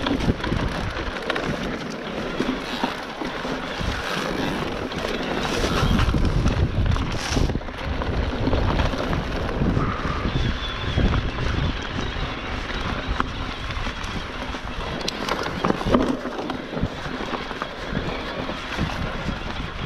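Wind rushing over the camera microphone as an electric mountain bike rolls fast along a dirt singletrack, with tyre noise on the dirt and scattered knocks and rattles from the bike over bumps.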